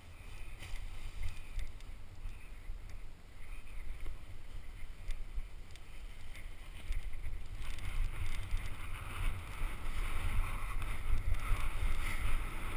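Wind buffeting the action camera's microphone, a low rumble with scattered clicks and rustles, growing louder over the second half as the speed wing is pulled up and the pilot runs down the slope to launch.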